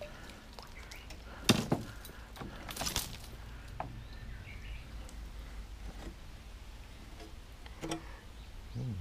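Knocks and clatter of a landing net and gear in a small metal jon boat as a largemouth bass is netted and laid on a measuring board. Two sharp knocks come about a second and a half in, more clatter around three seconds, and another knock near the end.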